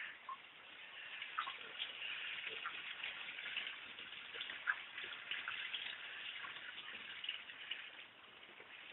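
Faint rustling with light, scattered ticks as a German Shepherd puppy noses through long grass and garden plants.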